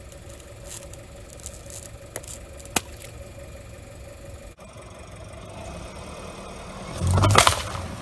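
Car engine running low and steady, with small crackles and a sharp click in the first few seconds, then a loud burst lasting about half a second, about seven seconds in, as a car tire crushes an object.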